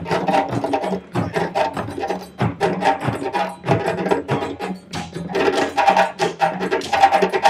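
West African drum ensemble: several djembes played by hand over barrel-shaped bass drums struck with sticks, a fast, dense rhythm of sharp slaps and open tones. The playing grows louder about five and a half seconds in.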